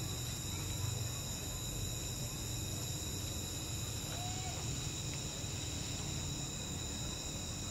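Night insect chorus: a steady high-pitched drone of calling insects over a low background rumble.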